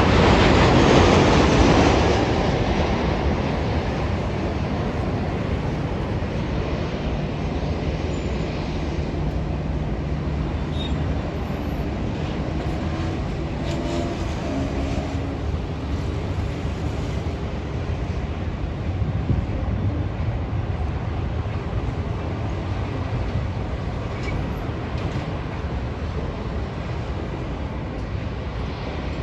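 Jet airliner's engines, a Boeing 737-800, loud at first and fading over about two seconds into a steady distant low rumble.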